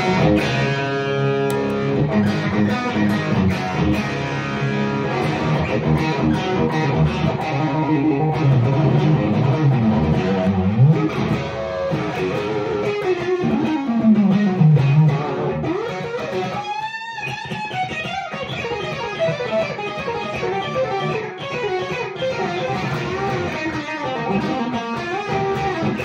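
Electric guitar, a Stratocaster, played through a Marshall amp with a Wolf Cub boost and a Fat Monday overdrive engaged. The playing is an overdriven lead line with sliding notes and a long falling slide a little past halfway, and it breaks off briefly about 17 seconds in.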